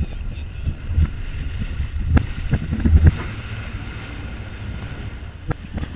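Sportfishing boat under way: water rushing and splashing along the hull, with wind rumbling on the microphone and a few sharp slaps of water against the hull.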